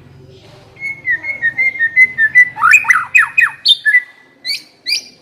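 White-rumped shama (murai batu) singing a fast, varied phrase starting about a second in. It opens with a rapid run of short notes, then a burst of notes sweeping down in pitch, then brief high whistles.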